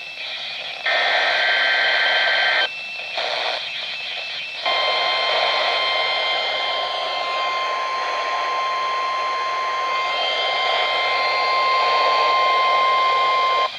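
NOAA Weather Radio test signal over the air with radio hiss. First comes a burst of warbling two-tone SAME header data. About four and a half seconds in, the steady 1050 Hz weather radio warning alarm tone starts and holds for about nine seconds.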